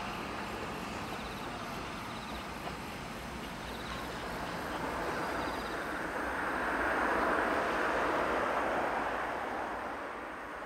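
Diesel-hauled passenger train approaching on a single-track line, a steady running rumble that grows to its loudest about seven seconds in and then eases a little. Faint repeating high ticks sound above it.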